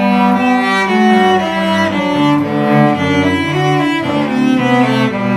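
Two cellos, one acoustic and one electric, bowing a duet in two parts, with short notes following one another steadily.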